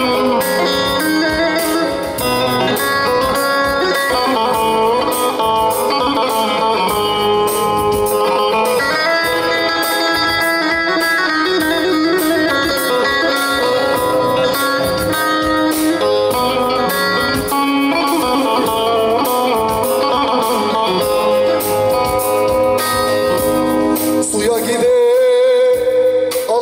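Instrumental passage of a Teke-region Turkish folk song, a bağlama playing plucked melodic runs over electronic keyboard accompaniment. A man's voice starts singing near the end.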